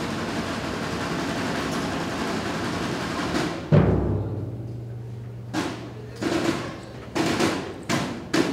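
Drums: a sustained drum roll cut off by one loud, ringing bass-drum hit a little under four seconds in, then about five separate drum strokes at uneven intervals.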